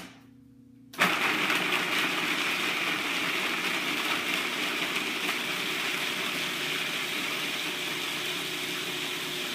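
Cuisinart food processor switched on about a second in and running steadily, its blade grinding soaked almonds into meal.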